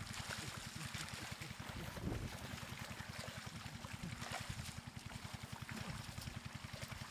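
Shallow floodwater rushing through a grassy channel, with splashing as fish thrash in the current and hands grab at them. A low, fast-pulsing rumble runs underneath.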